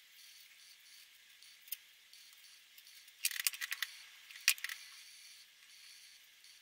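Sharp plastic clicks and clacks of Winsor & Newton Promarker felt-tip marker pens being handled and swapped: a quick run of clicks about three seconds in, then one louder click about a second later, over a faint steady hiss.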